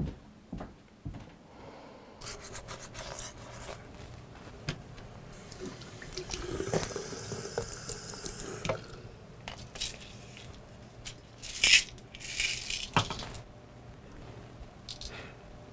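Bathroom sink tap running for several seconds while hands wash under it, then stopping. A few sharp clicks and a short, loud rattle follow near the end.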